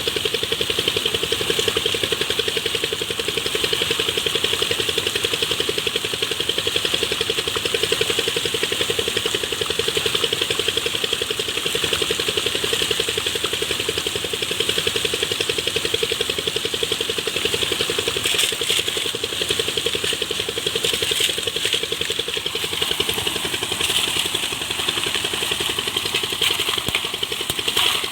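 An engine running steadily at an even speed, with a fast regular firing pulse and a constant hiss over it.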